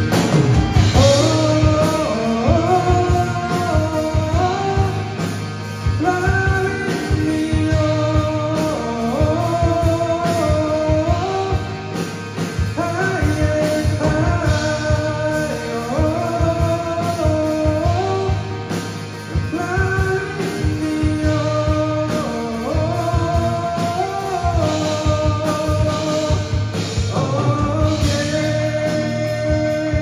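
Live rock band playing: electric guitars, bass guitar and drum kit, with a stepping melody line that repeats the same phrase about every six seconds.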